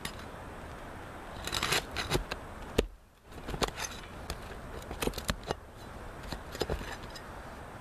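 Flat bar scraping and prying under brittle asphalt shingle tabs to work the nails loose: an irregular run of sharp clicks and scrapes.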